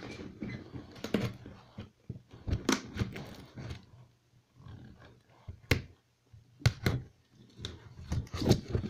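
A cardboard shipping box being handled and pulled at while something is taken out of it: scattered rustles, scrapes and knocks, with a couple of short pauses.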